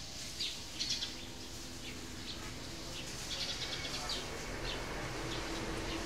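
Birds chirping in short, repeated calls over a low steady background hum.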